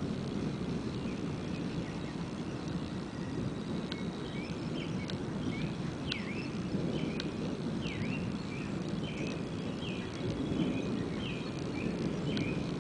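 Continuous low rumble of distant thunder during a thunderstorm. From about four seconds in, a bird chirps over it repeatedly, short notes about once or twice a second.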